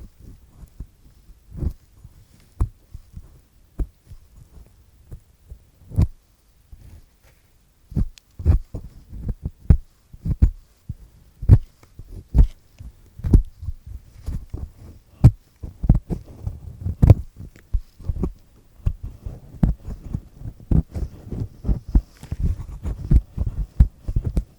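Earpick with a black triple-disc head scraping and peeling earwax, recorded close to the mic: irregular scratching and crackling strokes with dull low thumps. The strokes are sparse at first and come thick and fast from about eight seconds in.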